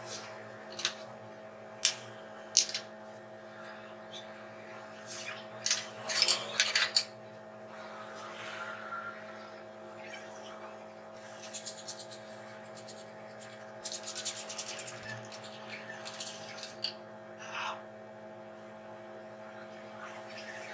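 Scattered sharp knocks and rubbing sounds from workshop handling, over a steady electrical hum.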